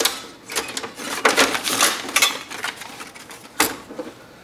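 Plastic and metal parts of a gummed tape dispenser being handled: irregular clicks, knocks and scraping rattles as the front assembly is worked loose, with one sharp click near the end.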